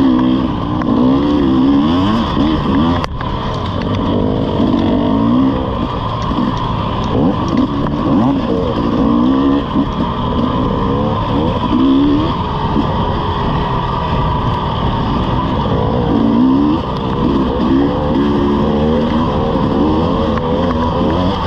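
Off-road dirt bike engine revving up and down as the throttle is opened and closed over and over on a rough trail. A brief sharp knock comes about three seconds in.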